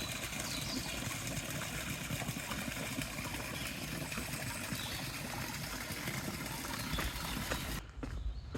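Steady rushing outdoor background noise, which cuts off abruptly near the end, leaving a quieter background with a few small clicks.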